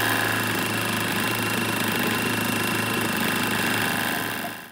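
Battery-powered electric oil transfer pump running steadily with a constant motor hum and whine, pumping EP90 gear oil through a tube into a 1-litre bottle. It cuts off suddenly near the end.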